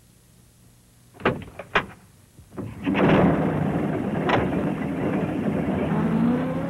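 Post van sound effects: a few door knocks and thuds about a second in, then the van's engine starts and runs steadily from about three seconds in.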